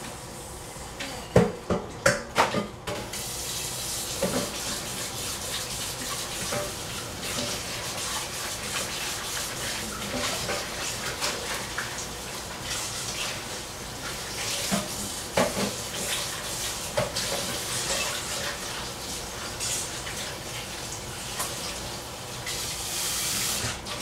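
Pressure cooker letting off steam: a few sharp clicks, then a steady hiss from its valve with spattering crackles, which stops just before the end.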